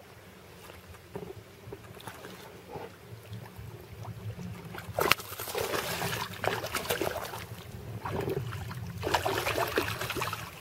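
A hooked pike thrashing at the water's surface beside the boat. About halfway through a sharp splash opens a burst of irregular splashing, and a second burst of splashing comes near the end.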